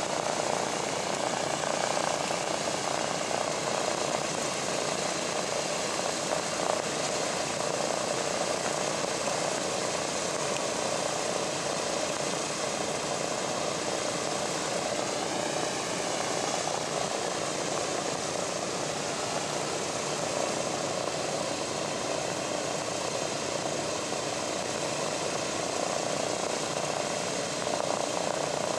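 Radial piston engines of a WWII bomber running steadily, an even drone; the engine note wavers briefly about halfway through.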